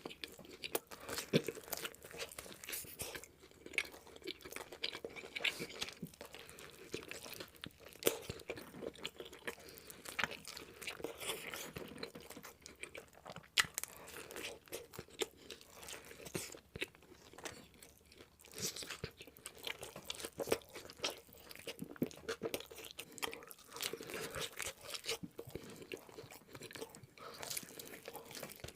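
Close-miked eating: a person biting and chewing food, with many irregular, crisp crunches.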